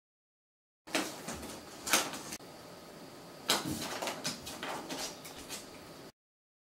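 A cat batting a small part across a wooden floor: a string of knocks and clicks as the part skitters and strikes. The sharpest knocks come about one, two and three and a half seconds in.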